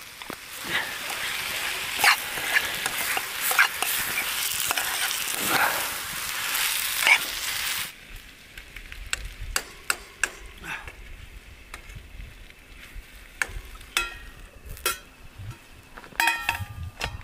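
Marinated chicken sizzling loudly as it fries in a pan, with a spoon stirring and scraping through it in sharp clicks. About eight seconds in the sizzle cuts off suddenly, leaving only scattered clicks and knocks.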